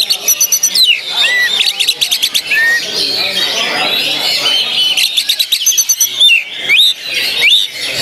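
Oriental magpie-robin (kacer) singing in fast bursts ("tembakan"): rapid rattling trains of notes and sharp whistles sliding up and down, with rising whistles near the end. A steady chatter of many other songbirds lies beneath.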